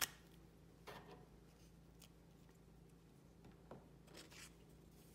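Near silence with faint handling of a small plastic super glue bottle and cardboard parts: one sharp click right at the start, then a few soft ticks and a brief rustle about four seconds in.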